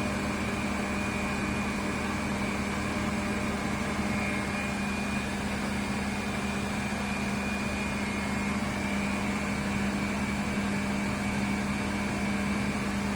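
Wastewater treatment plant machinery running steadily: a constant low hum with a thin, steady high whine above it.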